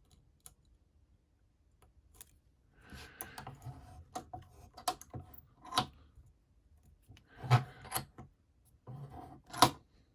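Steel lock picks and a tension tool scraping and clicking in the keyway of a Master Lock 410 lockout padlock, in scattered short scrapes with a few sharp clicks from about three seconds in.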